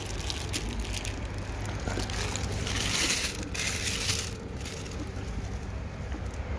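Paper food wrapper crinkling and rustling as it is opened out on the pavement, loudest a few seconds in, over a steady low rumble of street traffic.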